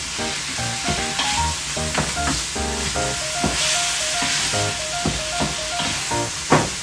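Minced beef sizzling as it fries in a stainless steel pan, stirred and broken apart with two wooden spatulas that knock and scrape against the pan. The sizzle is steady, with frequent short clacks from the spatulas.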